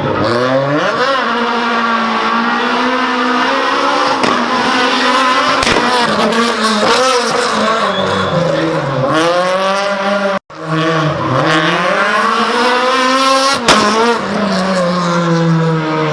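Rally car engine revving hard, its pitch climbing and dropping again and again with gear changes and lifts off the throttle. The sound cuts out for a moment about ten seconds in, and there is a single sharp bang about three seconds later.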